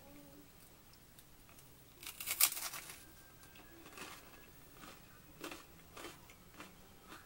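Crunchy WASA whole grain crispbread being bitten and chewed: one loud crackling crunch about two seconds in, then several softer crunches of chewing.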